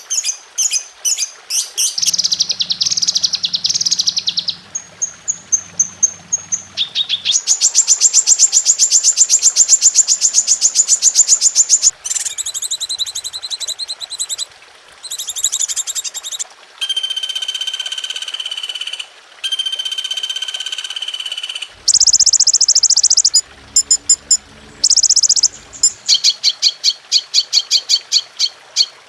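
Recorded songs and calls of many different songbirds played one after another, each a few seconds long and cut abruptly into the next: rapid repeated chips, a long buzzing trill, and steady high whistled notes. It is a songbird 'masteran' track, a mix of birdsong for teaching caged birds.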